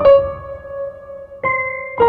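Background music: electric piano playing slow notes, one struck at the start and another about one and a half seconds in, each ringing on.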